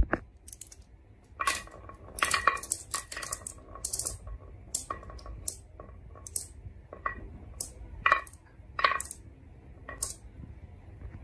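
Glass marbles clinking against each other and knocking on a wooden track as they are set one by one into its wavy groove: a string of irregular sharp clicks, some in quick clusters, each with a brief glassy ring.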